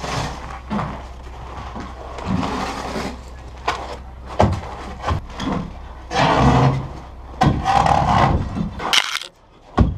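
Irregular scraping and knocking of shovels and pry bars against ice and the wooden arch form as it is worked loose, with a few sharp knocks among longer scrapes.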